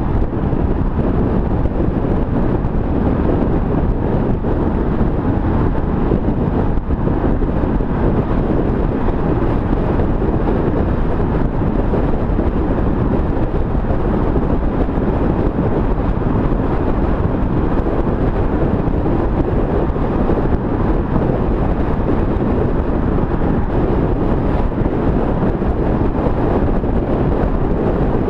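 Steady wind rush on a bonnet-mounted camera's microphone, over the road and engine noise of an Aston Martin cruising at a steady speed.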